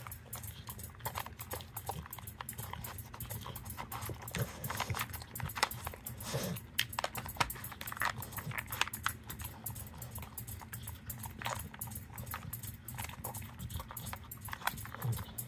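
A dog nosing and pawing at a plastic treat-puzzle toy: irregular plastic clicks and knocks as its lids and covers are pushed and slid, with the dog sniffing at it.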